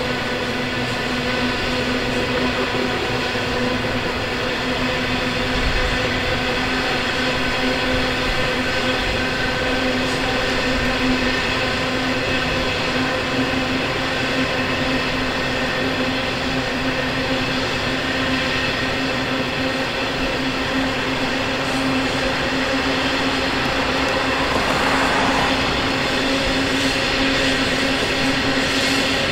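Freight train running past at a steady speed: a continuous drone with an even, unchanging hum that lasts the whole time.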